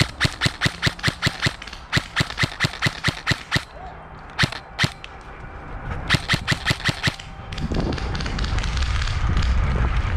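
Airsoft electric gun (AEG) firing in quick strings of sharp snaps, about six or seven shots a second, in three runs with a pair of single shots between. Near the end the shooting stops and a rough rustling noise takes over.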